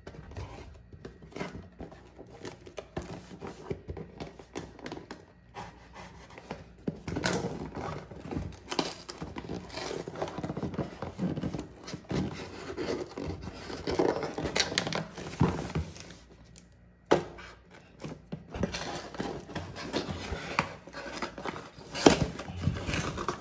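Scissors snipping and slicing through packing tape and a cardboard shipping box, with irregular rustling, scraping and tapping as the box is handled and turned over. A sharp snap stands out about a second before the end.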